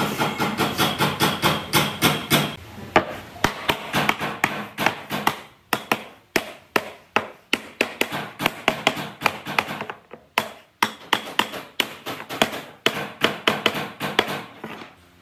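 A small wooden block knocking on a pine tabletop: quick, irregular sharp taps, several a second, with brief pauses about six and ten seconds in.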